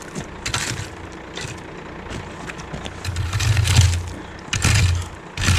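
Gravel being raked out over a driveway, a metal rake scraping and crunching through the stones in irregular strokes, with a longer, louder pull in the middle.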